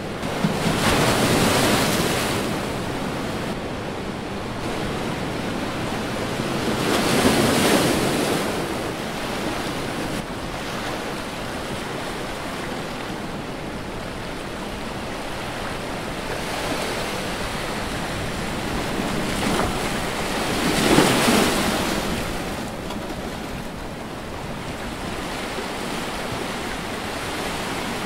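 Ocean surf breaking on a rocky shore: a steady wash of water with three louder breakers surging in, about a second in, around seven seconds in, and about twenty-one seconds in.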